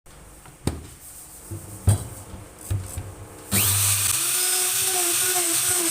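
A few wooden knocks and clunks of handling, then about three and a half seconds in a power tool starts up and runs steadily at full speed with a high hiss and a faint wavering whine.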